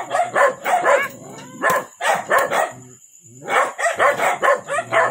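A dog barking repeatedly in short barks, with a brief pause about three seconds in.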